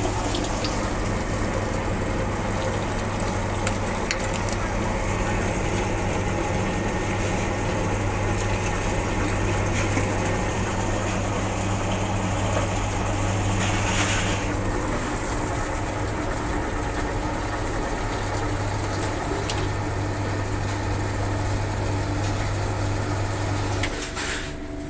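Electric meat grinder's motor running under load with a steady low hum as it minces lamb meat. The hum cuts off about a second before the end.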